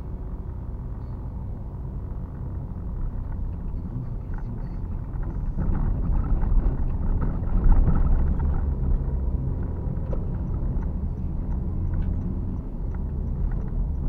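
Car driving, its engine and tyre rumble heard from inside the cabin, growing louder about six to eight seconds in and then easing. A faint, even high ticking runs through the second half.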